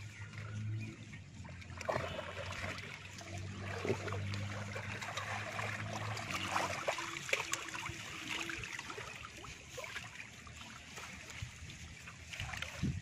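Shallow water sloshing and splashing as a bamboo-framed push net is shoved through it and lifted, with small drips and trickles, while a low steady hum runs in the background for roughly the first half.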